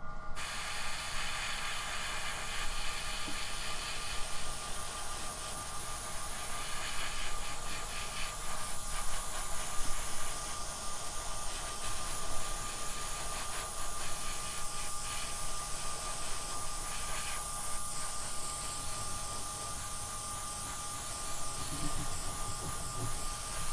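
Gravity-feed airbrush hissing as it sprays thinned Tamiya silver lacquer, the spray rising and falling in strength as the trigger is worked.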